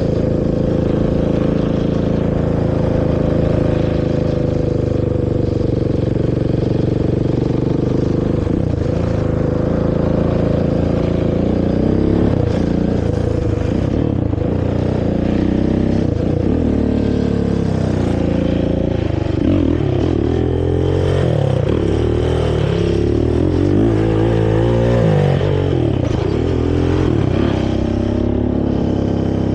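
Honda TRX450R quad's single-cylinder four-stroke engine through its stock exhaust, held at a steady speed for the first several seconds, then revved up and down again and again as the throttle is opened and closed.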